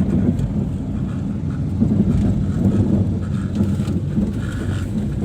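Steady low rumble of a moving vehicle: engine and road noise heard while riding along.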